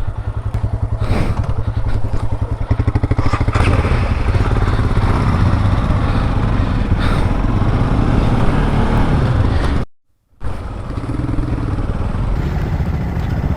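Motorcycle engine running steadily on the move, its firing pulses dense and even, with road and wind noise. The sound drops out for about half a second some ten seconds in, then picks up again.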